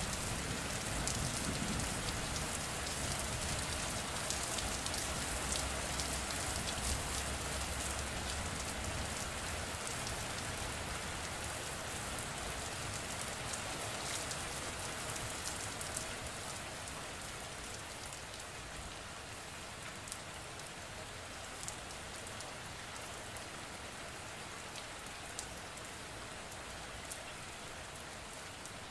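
Steady rain falling, an even hiss with scattered sharper drops. A low rumble under it in the first several seconds fades away, and the rain grows slowly quieter.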